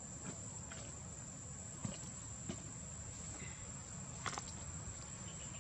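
Outdoor ambience: a steady high-pitched insect trill over a low background hum, with a few faint ticks and rustles.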